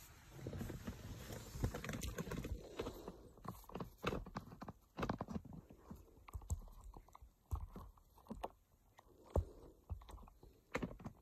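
Hands handling the plastic dash trim and newly fitted screen: a few seconds of faint rubbing, then scattered light clicks and taps.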